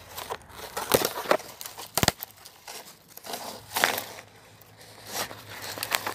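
Footsteps crunching through dry leaves and twigs: irregular crackles and crunches, with one sharp snap about two seconds in.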